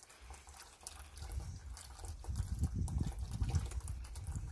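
Water trickling and splashing from a running 5 W 12 V brushless solar water pump, with irregular drips over a low rumble.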